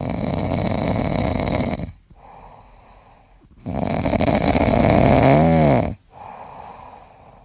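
French bulldog snoring in its sleep: two long, loud snores of about two seconds each, each followed by a softer breath.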